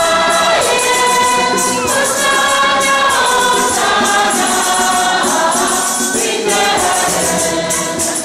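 A choir of women singing a hymn together, with a tambourine shaken in a steady rhythm.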